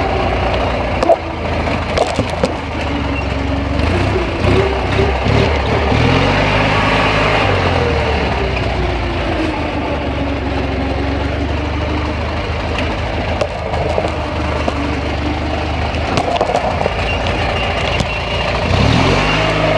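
Murray riding lawn mower's engine running under load while driving, its speed rising about six seconds in and again near the end, with a few knocks and rattles in the first couple of seconds.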